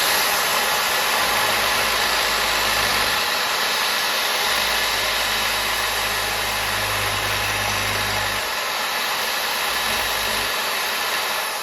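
Corded electric drill running steadily while a plastic part is ground down against a rough file. It makes a continuous grinding noise with a low motor hum, and stops at the end.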